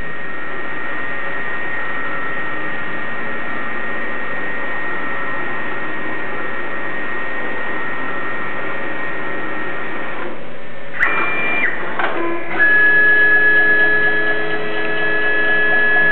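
CNC milling machine running a tapping cycle: a steady motor whine with several fixed tones. About eleven seconds in there is a brief rising whine, then a louder, higher-pitched steady whine to the end.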